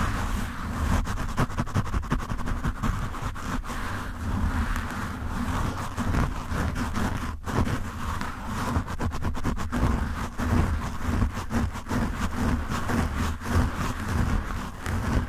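Fingertips scratching and rubbing a foam microphone windscreen right on the mic: a continuous rough scratching with a deep rumble and dense fine crackles, with a brief break about seven seconds in.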